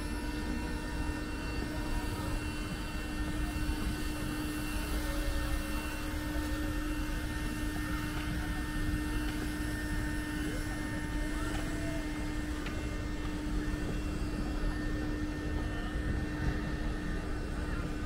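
A steady mechanical hum holding one pitch, over constant outdoor background noise.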